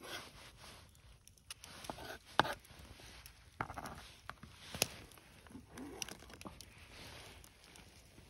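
Metal spoon scraping chopped fish and green onion across a wooden cutting board into an aluminium mess tin, with a few sharp clicks of metal on metal.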